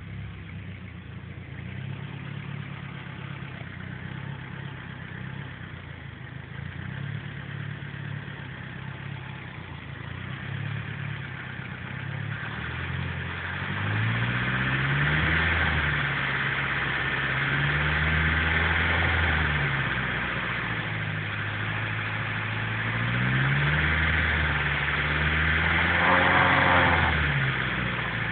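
Nissan S14's engine idling unevenly, the misfiring idle the owner is showing. From a little under halfway, the engine speed rises and falls again and again in slow swells.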